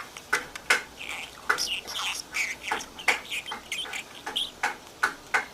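Pet budgerigar chattering: a quick run of short chirps and warbles mixed with sharp clicks, several a second.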